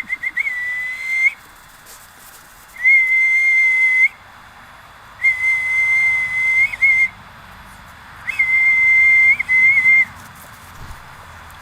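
A person whistling to call puppies: four long, steady, high whistles of a second or two each, with a short warble at the ends of some.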